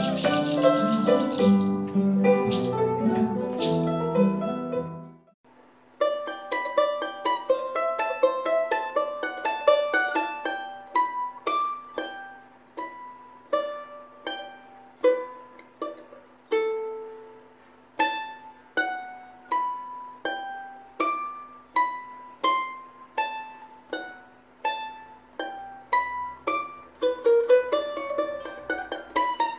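Instrumental music: a fuller piece with bass notes fades out about five seconds in, then after a short gap a charango plays a slow melody of single plucked notes, each ringing out and dying away, over a steady low drone.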